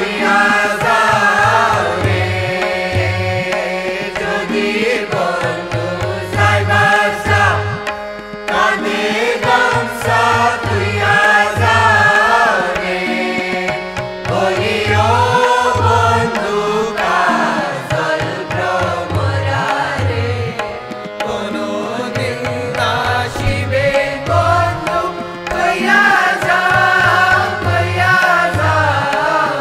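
Background music: Indian classical singing with gliding melodic lines over a steady tabla rhythm.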